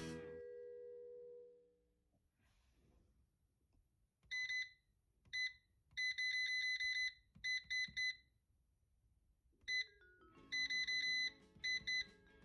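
Air fryer's touch control panel beeping as its buttons are pressed to set the cooking time: short, high electronic beeps, some single and some in rapid runs, starting about four seconds in. Background music fades out in the first second or two.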